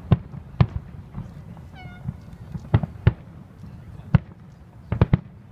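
Distant aerial fireworks shells bursting: sharp booms at irregular intervals over a low rumble, with a quick run of three near the end. About two seconds in, a brief high-pitched call cuts in between the bursts.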